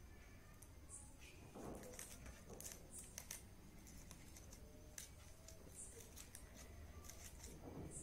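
Near silence with faint, scattered rustles and light taps of green craft-paper strips being handled and pressed with a pencil.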